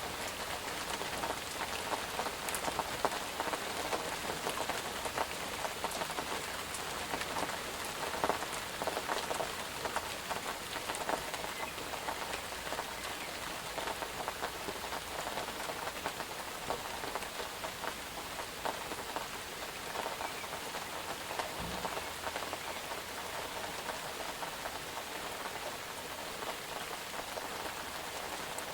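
Steady rain falling on a surface, an even hiss dotted with many distinct drop taps.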